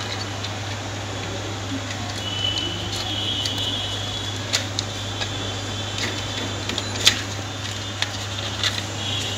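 Plastic clicks and light knocks as a combined three-pin socket plate is handled and pressed into its wall box over the wires, with a high squeak of plastic scraping a couple of seconds in. A steady low hum runs underneath.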